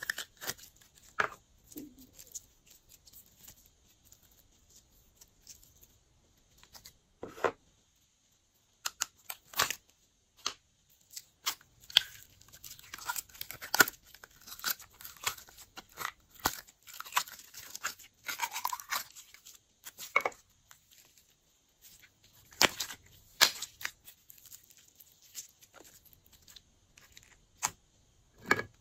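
Glossy slime being squished and stretched by hand, giving irregular sticky clicks and pops with short pauses between them, busiest through the middle.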